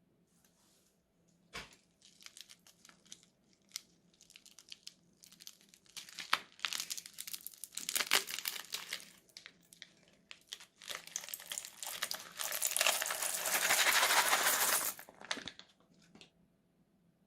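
Crunchy slime crackling and popping as it is pressed and squished by hand: a sharp click about a second and a half in, then scattered crackles that build into a dense run of crackling, loudest near the end, then stop.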